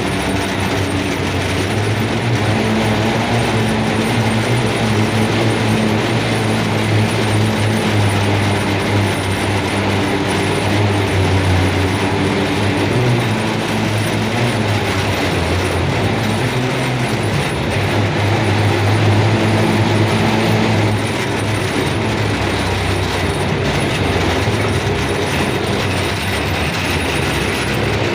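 A train running steadily on the rails: a continuous rumble with a low engine hum that swells and eases slightly.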